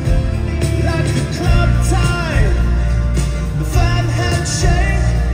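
Live rock band playing an instrumental passage: acoustic guitar strumming under lead notes that slide and bend in pitch, over a steady bass.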